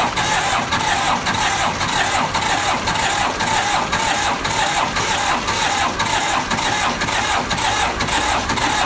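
Fiat 480 tractor's diesel engine running with an even, steady knock, while the injector nozzles are checked for a miss. The mechanic finds the fault to be a blown head gasket, not the injectors.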